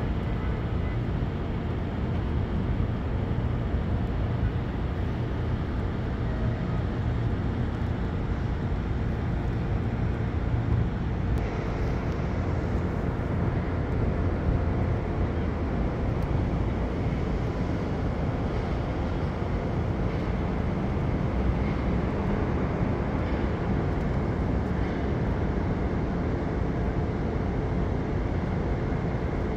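Steady low rumble of city traffic, with no single sound standing out.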